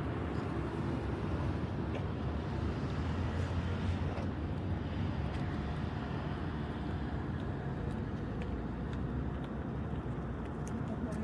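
Road traffic on the roadway across the dam: a steady low rumble of passing vehicles that swells about three to four seconds in, then cuts off abruptly at the end.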